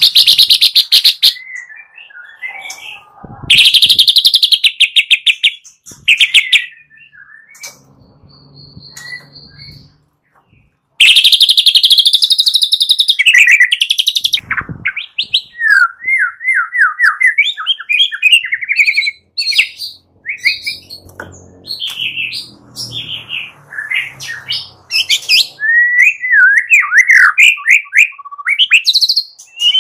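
White-rumped shama (murai batu) singing: harsh, very rapid rattling bursts, the 'kretek' call, three times in the first half, then a long run of quick, varied whistled and chattering phrases.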